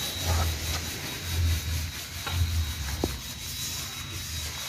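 Masking tape being worked along a boat hull, rubbing as it is pressed down by hand, over an intermittent low rumble, with one sharp click about three seconds in.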